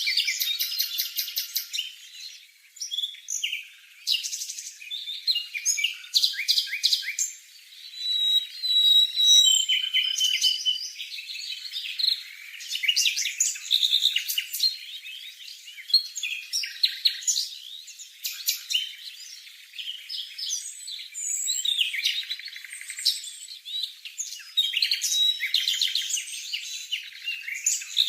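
A bird singing a long, varied, high-pitched song of rapid chirps, short trills and brief whistled notes, phrase after phrase with short pauses.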